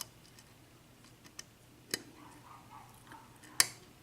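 A few sparse clicks of a hook pick and tension wrench working the pin stacks of a Dorma mortice lock cylinder, which has security pins in the top, under light tension. The sharpest click comes about three and a half seconds in.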